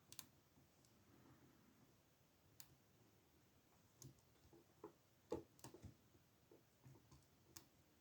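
Faint, irregular metallic clicks of a lock pick and tension wrench working the pin stack of an old Ruko padlock during single-pin picking, the loudest about five and a half seconds in.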